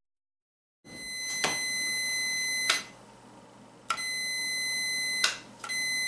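Fluke digital multimeter's continuity beeper giving a steady high beep three times, each more than a second long, with a click at each start and stop. It signals continuity across the dishwasher float switch's contacts while their pinout is worked out.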